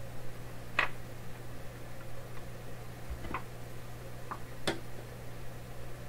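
A few short, sharp clicks and taps, about four, from small metal parts and a tool being handled against a dismantled toggle switch, over a steady low hum.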